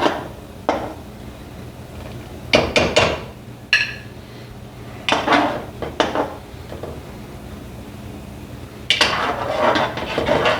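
Kitchen utensils knocking and scraping against pots and dishes in a series of short clatters, with a brief ring about four seconds in and a longer scraping clatter near the end.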